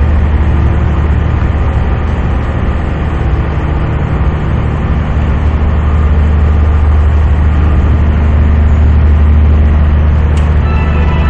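A passenger ferry's engines running with a loud, steady low drone, heard on board. Music starts just before the end.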